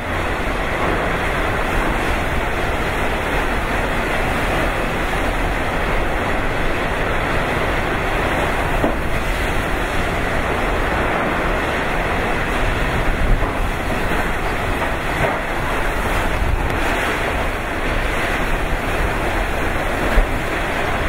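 Super typhoon wind and driving rain blowing without letup, a loud, dense rush that swells and eases, with wind buffeting the microphone and two brief louder gusts.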